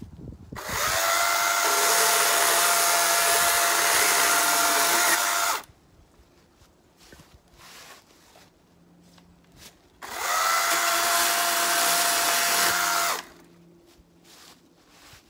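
Battery-powered electric chainsaw running in two bursts, about five seconds and then about three seconds long. Each time the motor whine rises quickly to a steady pitch, holds there and cuts off abruptly.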